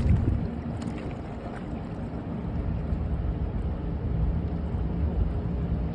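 Harbour tugboat's diesel engines running, a steady low rumble.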